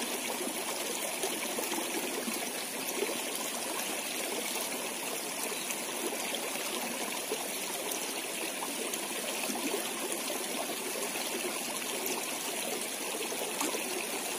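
Small, shallow, muddy stream running steadily, its water trickling and rippling over rocks and debris.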